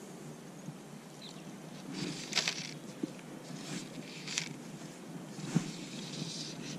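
Fly line being stripped in through the rod guides by hand in short pulls, each pull a brief hiss, the loudest about two and a half seconds in. A sharp tap about five and a half seconds in.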